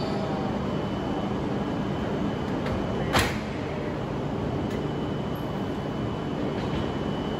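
Automatic couplers of an H5 series Hayabusa shinkansen and an E6 series Komachi coupling nose to nose: a single sharp clunk about three seconds in as the couplers lock together, over a steady mechanical hum with a faint high tone.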